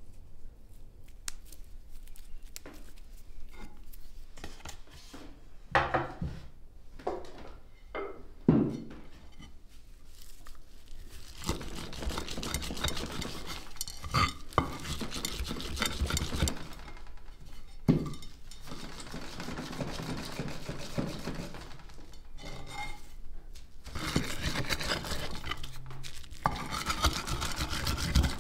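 A knife knocks on a wooden chopping board. Then, from about ten seconds in, a stone is pressed, rubbed and scraped around a terracotta bowl, crushing chopped herbs, with the occasional knock of stone on clay.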